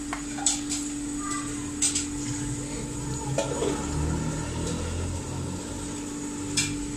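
Metal spoon stirring a pot of watery curry, clinking sharply against the pot a few times, over a steady hum.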